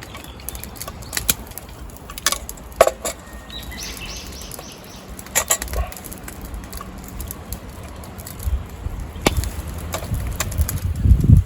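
Scattered light clicks and knocks, like metal gear being handled, with a bird giving a quick series of about six high chirps partway through and a low rumble near the end.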